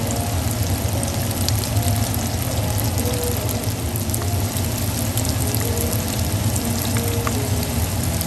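Lemongrass- and cornstarch-coated tofu shallow-frying in hot oil in a pan: a steady sizzle with many fine crackles.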